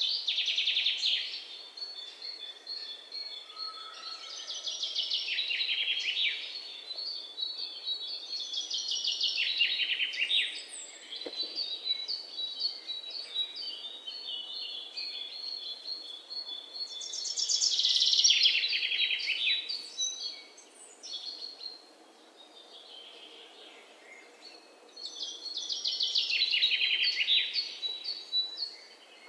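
Birds singing: loud, fast trills that fall in pitch come every several seconds, with quieter runs of rapid chirps in between.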